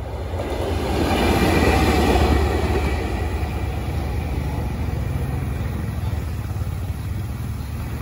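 D19E diesel-electric locomotive passing close by: a low engine rumble with rolling wheel noise, loudest about two seconds in, then easing to a steady rumble as it moves away.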